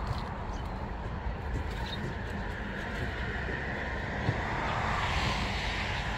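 A flock of Eurasian tree sparrows chattering faintly over a steady low rumble that swells about five seconds in.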